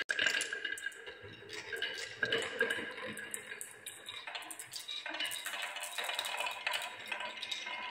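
Glass marbles rolling along wooden marble-run tracks, a spiral and a wavy grooved slope, with many quick clicks and clinks as they knock against the wood and each other and pile into a wooden catch basin.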